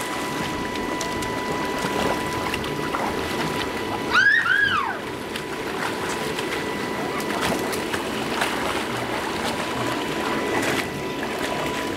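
Steady hum of an inflatable water slide's air blower under splashing water from children playing in its pool. About four seconds in, a child gives one high squeal that rises and falls twice.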